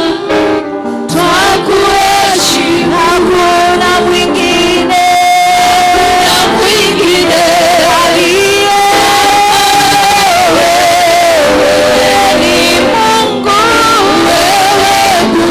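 Worship music with a choir of men and women singing a melody over accompaniment.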